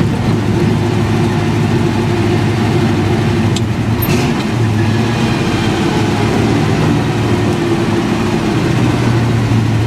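1963 Chevrolet C30 one-ton truck's engine running steadily, with a couple of short clicks about three and a half to four seconds in.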